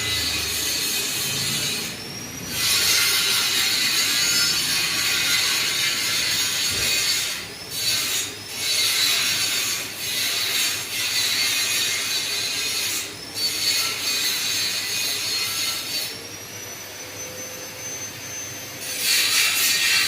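Panasonic F-560Z2 140 cm industrial ceiling fan running: a steady hissing rush that drops away briefly several times, and for a few seconds near the end.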